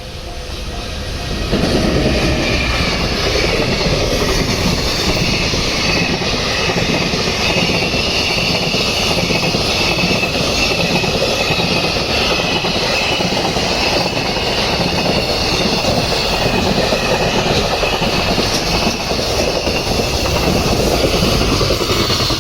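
A train passing close by: steady, loud noise of wheels running on the rails, setting in sharply about a second and a half in and going on without a break, with a thin high whine running over it.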